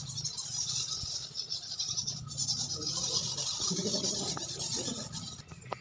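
A colony of roosting bats chittering: a dense, continuous mass of tiny high-pitched squeaks from many animals at once.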